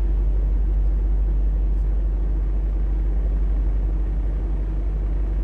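Steady low rumble of a semi truck's diesel engine idling, heard from inside the cab.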